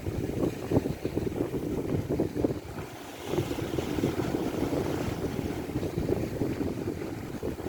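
Strong wind buffeting the microphone in uneven gusts, a heavy rumble.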